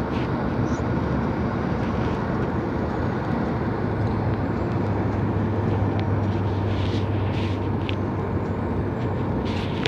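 Steady rumble and low hum of a moving vehicle heard from inside, with a few faint clicks.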